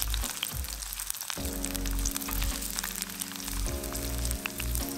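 Chopped onions frying in oil in a folding pan over a campfire, with a steady fine crackling sizzle and occasional stirring with a wooden spoon. Background music with sustained low notes plays underneath, changing chord about a second in and again past the middle.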